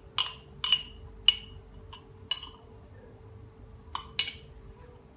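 A spoon clinking against a glass measuring cup as tahini is scraped out of it into a glass bowl: five sharp clinks about half a second apart, the loudest in the middle, then a pause and two quick clinks near the end.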